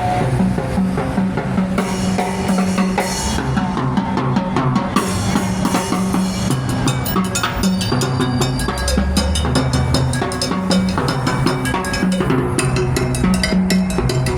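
Street musician's drumming: rapid percussion hits over a repeating low bass line.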